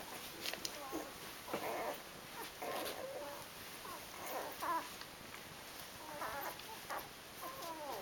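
Eight-day-old Rhodesian Ridgeback puppies whimpering and squeaking while they nurse. The calls are short, high and wavering, and come one after another all through.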